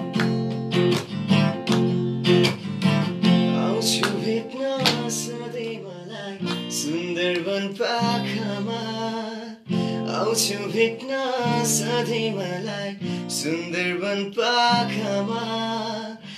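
Steel-string acoustic guitar strummed in a steady chord rhythm. In the second half a man's voice sings over it.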